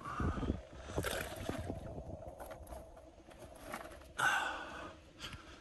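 Boilies being thrown out from a boat to bait a carp swim: a run of short knocks and rattles, with a louder breathy rush about four seconds in.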